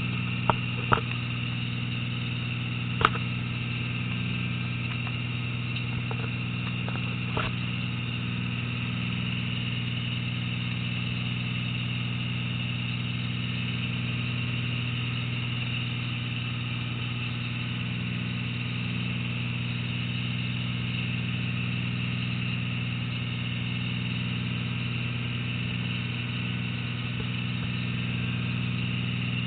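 Fishing boat's engine running steadily as the boat moves along, with a few sharp knocks in the first few seconds, the loudest about three seconds in.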